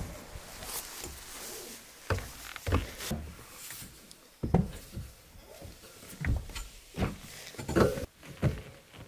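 Irregular thumps and knocks, about ten over several seconds, from someone climbing onto a Land Rover Defender's metal roof rack and moving about on it.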